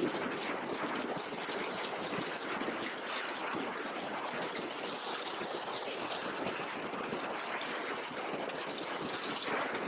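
Steady wind rush buffeting a helmet-mounted action camera on a motorcycle cruising at road speed.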